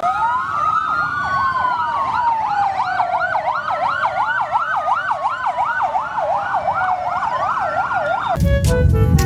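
Emergency-vehicle siren with several wailing tones layered together: one rises and falls quickly, about three times a second, while another sweeps slowly down and back up. It cuts off abruptly near the end.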